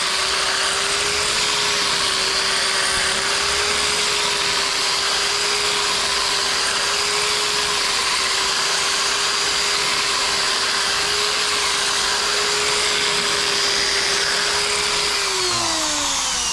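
Electric drill running at a steady speed for a long stretch, then winding down with a falling whine near the end as it is let off. The hole is hard going: the bit has struck steel inside the wall.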